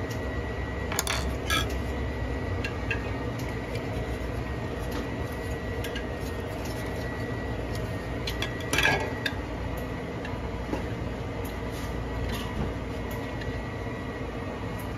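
Metal grinder parts clinking and knocking against each other as they are handled, with a few sharp clinks about a second in and a louder one near nine seconds, over a steady low hum.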